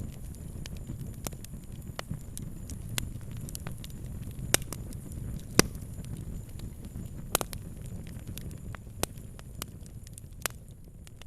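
Fire crackling: irregular sharp pops and snaps, a few louder ones about halfway through, over a steady low rush of the flames.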